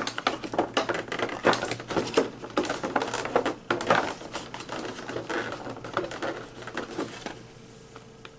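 Cardboard packaging crackling and tapping in quick, irregular clicks as a boxed shampoo bar is pulled out of an advent calendar compartment. The handling dies down about a second before the end.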